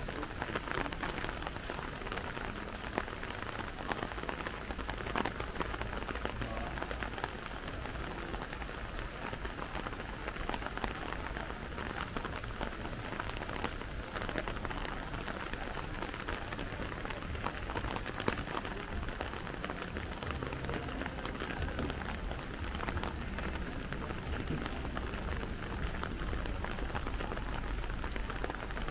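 Steady rain falling, a dense patter of drops that goes on evenly throughout.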